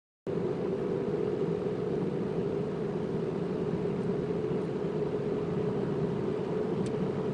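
Steady engine and road noise heard from inside a moving car, starting suddenly about a quarter second in.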